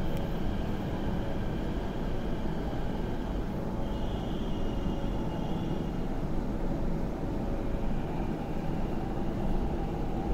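Steady low rumble and hum inside the cabin of an MTR C-train standing short of its stopping position, with a faint high whine for about two seconds, starting about four seconds in.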